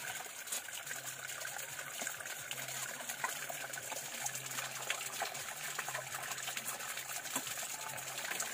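Forest stream trickling: a steady watery rush with many small splashes.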